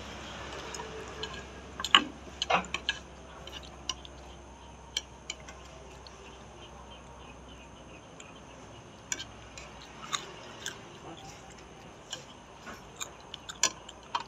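A person eating noodles with wooden chopsticks: chewing, with irregular sharp clicks and taps. The loudest come about two seconds in and near the end.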